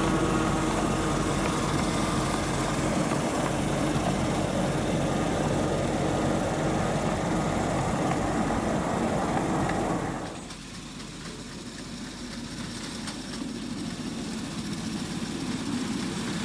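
7¼-inch gauge miniature locomotive running along the track, a steady mechanical running noise with a faint held tone. About ten seconds in it drops suddenly to a quieter running sound that slowly grows louder.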